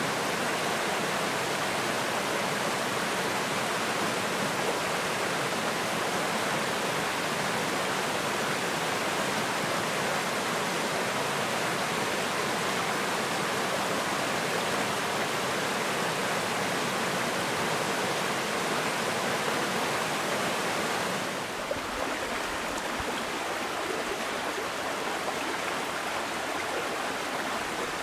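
Small forest creek rushing steadily over rocks. About three-quarters of the way through, the sound changes slightly and becomes a little quieter, with a brief low rumble.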